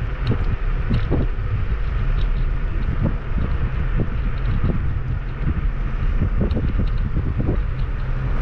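Wind buffeting the microphone during a ride on a Kugoo G2 Max electric scooter, a steady low rumble with frequent short knocks and rattles from the scooter rolling over an uneven path.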